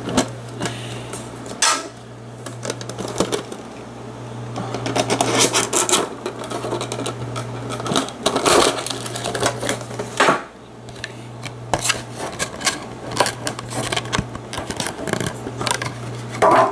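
Metal Pokemon card tin and its contents being handled: irregular clinks and knocks of the tin, with rustling as the booster packs and cards are taken out. A steady low hum runs underneath and drops out a few times.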